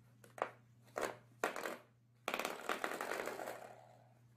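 Spring door stop being flicked by a puppy's paw: three light taps, then a little over two seconds in a twanging boing that rings and fades over about a second.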